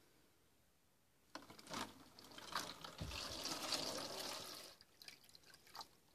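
Water poured from a plastic gallon jug into a cut-open plastic jug container, splashing as it fills. The pour starts about a second in, is heaviest in the middle, then eases off into a few drips near the end.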